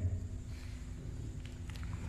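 A pause in speech filled with a steady low room hum, with a few faint clicks near the end as the pages of an open book are handled.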